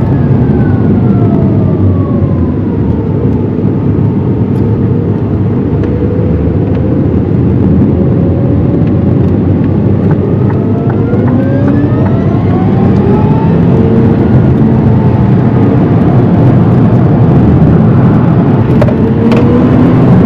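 Rimac Nevera's electric motors whining over steady tyre and road noise. The whine falls in pitch over the first few seconds as the car slows, then climbs again from about halfway and once more near the end as it speeds up.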